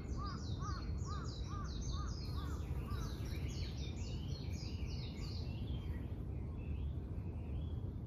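Two wild birds singing in woodland at once. One repeats a short rising-and-falling note about three times a second and stops about three seconds in. The other gives a quick run of high, falling notes that fades toward the end. Both are heard over a steady low rumble.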